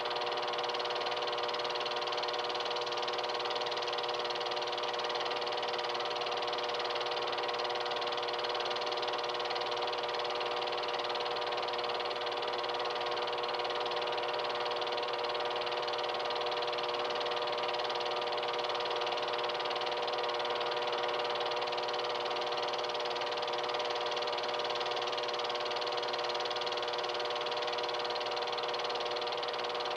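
Film projector running: a steady mechanical whir with a hum of several steady tones over hiss, unchanging throughout.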